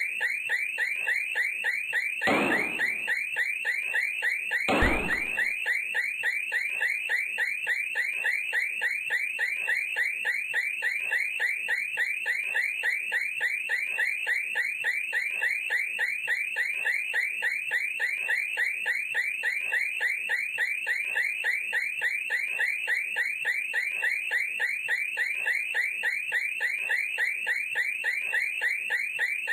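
Car alarm sounding with a rapid, unbroken warble. Two hard knocks land about two and a half and five seconds in, the second the louder.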